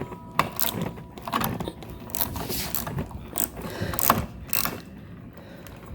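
Irregular metallic clicks and scrapes, a few a second, from hand work on the hardware of a garage door slide lock being fitted.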